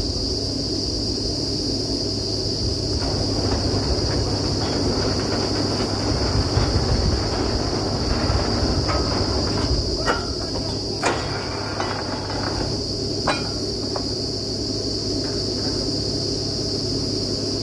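Truck-mounted borewell drilling rig's engine running steadily, with a few sharp knocks past the middle. A constant high insect buzz runs underneath.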